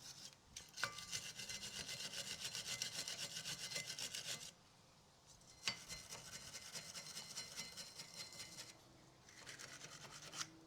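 Fast back-and-forth scraping of a hand tool on the steel brake caliper carrier's shim seats, cleaning off rust and debris. It stops for about a second midway, with a single click, and picks up again near the end.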